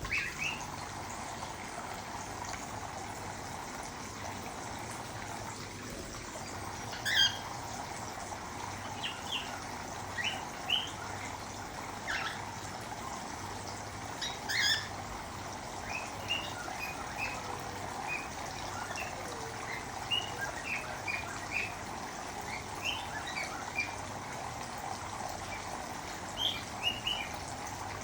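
Cockatiels chirping in many short calls, with a few louder calls among them, over a steady hiss of running water from their bath.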